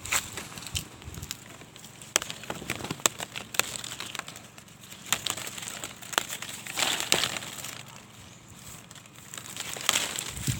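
Dry leaves and vegetation rustling and crackling, with irregular sharp snaps.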